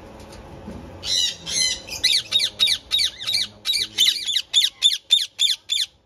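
An Indian ringneck parakeet giving a fast series of harsh, repeated squawks, about three a second, starting about a second in.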